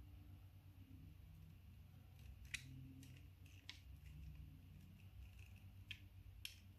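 Faint, sharp clicks of small plastic parts of a car's electric mirror-adjustment actuator being handled and fitted together, about four spread over several seconds, over a low steady hum.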